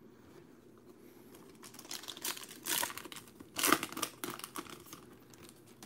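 Foil wrapper of a basketball trading-card pack being torn open and crinkled by hand, in several short crackling bursts, the loudest about two-thirds of the way through.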